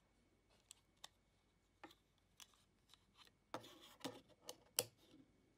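Faint plastic clicks and rubbing as the snap-on charging case is unclipped and pulled off a Samsung Galaxy Gear smartwatch, with a cluster of louder clicks in the second half.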